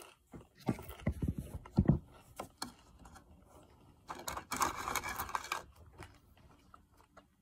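Takeout food and its paper packaging handled at close range: a few knocks and scrapes in the first two seconds, then a longer stretch of rustling and scraping in the middle.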